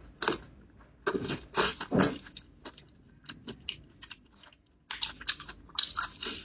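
Close-miked mouth chewing a mouthful of sauced broccoli: crisp crunching and small wet clicks in irregular clusters, thinning to a few faint clicks in the middle before picking up again.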